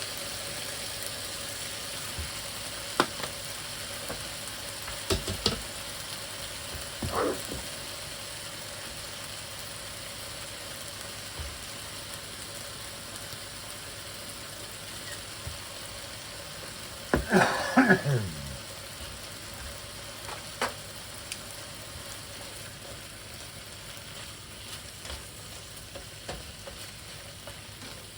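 Sliced chicken and onion sizzling in a hot frying pan, a steady hiss, with occasional clicks and scrapes from stirring and a louder burst about two-thirds of the way through.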